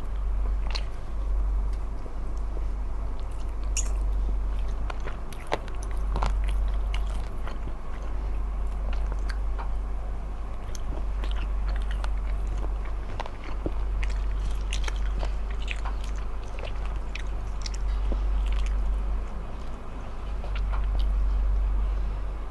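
Close-miked mukbang eating: biting and chewing food, with many small sharp clicks and smacks scattered throughout, over a steady low hum.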